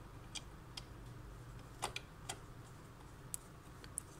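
Light, scattered clicks and ticks of small plastic and metal parts as the Epson L1800 print head is seated in its carriage and its small fixing screws are handled, about eight sharp ticks spread unevenly over a few seconds.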